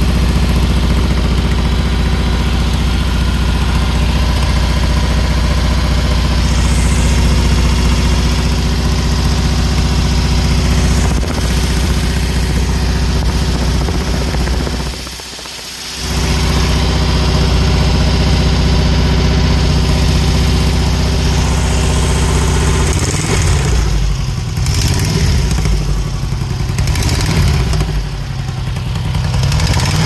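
Newly built 1680 cc dual-port air-cooled VW flat-four running steadily at break-in, heard close up beneath the car, with a big exhaust leak the owner cannot pinpoint. The sound is briefly muffled about halfway through, and in the last third the engine note wavers.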